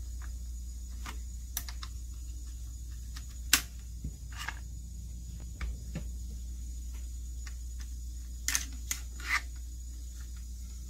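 Sharp metallic clicks and clacks of a Smith & Wesson M&P15 Sport II AR-15 rifle being field-stripped: the upper and lower receivers are separated and the charging handle is drawn back. The clicks come one at a time, the loudest about three and a half seconds in, with a quick group of three near the end, over a steady low hum.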